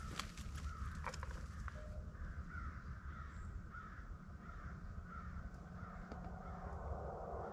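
A flock of geese honking: many short calls, one after another, about two a second, over a steady low rumble.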